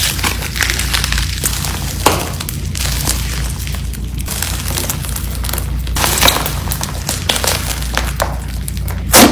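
Thick, fluffy slime being stretched, squeezed and pressed by hand, crackling and popping throughout as air pockets in it burst, with one loud pop just before the end.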